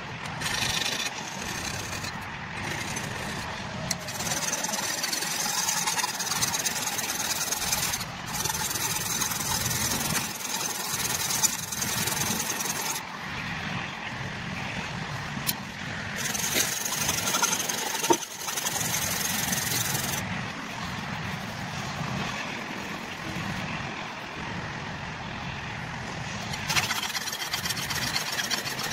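Rusty steel hatchet head scrubbed by hand to take off the rust, a steady scratchy rubbing with now and then a sharp click.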